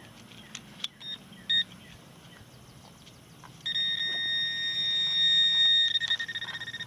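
Metal-detecting pinpointer sounding: two short beeps about a second in, then a continuous high alert tone from about halfway. The tone grows louder and starts pulsing rapidly near the end as the probe closes in on a buried metal target.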